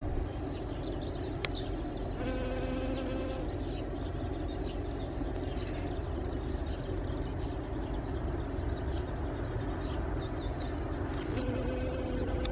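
Honeybee buzzing with its wings: a steady, even hum. It is clearest for about a second some two seconds in, and again near the end as the bee flies.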